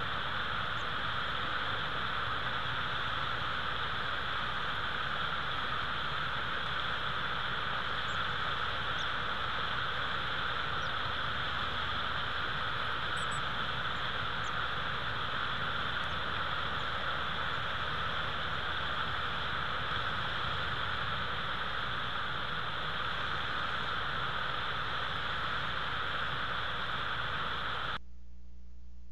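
Steady rushing outdoor noise picked up by the nest camera's microphone, with a few faint, brief high chirps or ticks scattered through it. The noise drops slightly and changes character near the end.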